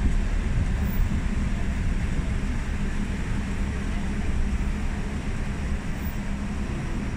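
Tram running along its track, heard from on board: a steady low rumble with a faint steady hum.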